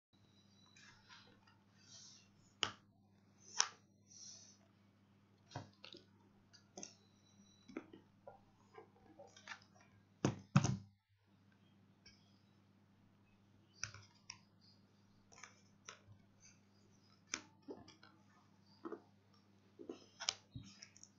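Fingernails picking, tapping and scraping at a clear seal sticker on a cardboard keyboard box: irregular clicks and short scratches, the loudest two close together about ten seconds in. A faint steady low hum runs underneath.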